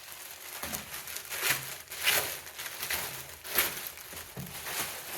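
Packaging crinkling and rustling in irregular bursts as a box is unpacked, loudest about two seconds in and again a little past halfway.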